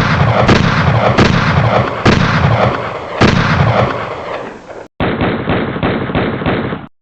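Gunfire sound effects. First comes a run of heavy shots, five of them unevenly spaced about half a second to a second apart, each with a long rumbling tail that fades out. After a sudden cut comes a separate stretch of rapid repeated shots, about four or five a second, like automatic fire, which cuts off abruptly near the end.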